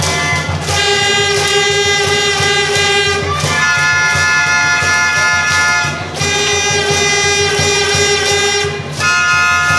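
A brass cheering trumpet playing a slow tune of long held notes, about three seconds each, changing pitch three times, over a constant low crowd hum in the stands.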